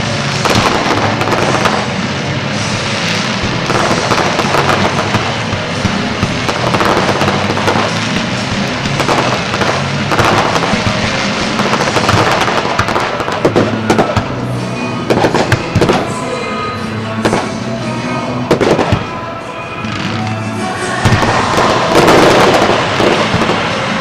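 Fireworks bursting and crackling over the show's music soundtrack, with a quick run of sharp bangs a little past the middle and more near the end.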